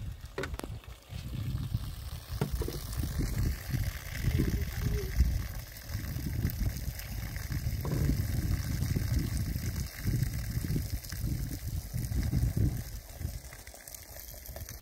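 Water from a garden hose running and splashing into plastic jugs, with an uneven low rumble rising and falling.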